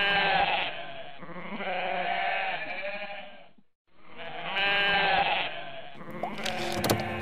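Goat bleating in a run of long, wavering calls, broken by a brief silence a little under four seconds in. A few sharp knocks come near the end.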